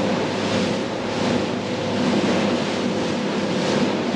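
Motorboat running at speed: a steady engine drone under the rush of water and spray from the hull and wake, with wind buffeting the microphone.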